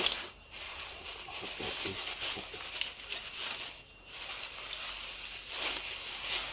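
Black plastic bag rustling and crinkling as hands handle and unwrap it, in two stretches with a short pause about four seconds in. A sharp click at the very start.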